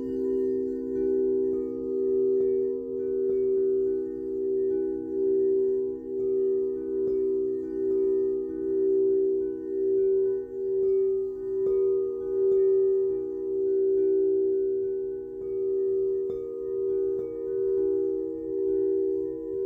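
Several frosted quartz crystal singing bowls ringing together in steady, overlapping tones, their loudness pulsing in a slow beat, with a few faint clicks now and then.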